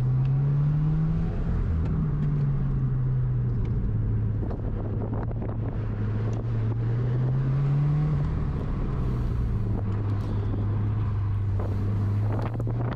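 Subaru WRX's turbocharged 2.0-litre flat-four engine being driven hard through an autocross course, heard inside the cabin. The engine note rises about a second in, drops back, and climbs again around eight seconds in, over steady tyre and road noise.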